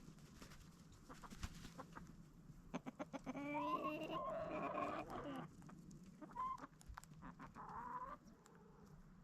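Domestic chickens calling: a string of sharp ticks, then a long bending call about three seconds in lasting some two seconds, followed by two short calls near the end.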